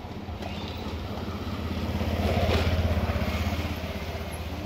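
John Deere 5045D tractor's three-cylinder diesel engine running, revving up to a peak about halfway through and easing back down.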